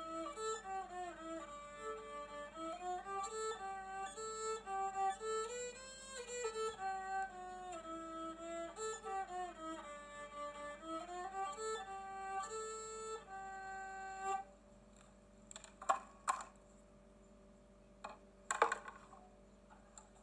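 Cretan lyra bowed in a stepping folk-style melody, which stops about two-thirds of the way through. A few short knocks follow as the instrument is handled.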